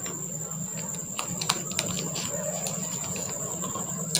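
Light scattered clicks and crinkles of a thin clear plastic (PVC) transfer sheet being handled and laid over a board of iron-on stones, over a steady low hum.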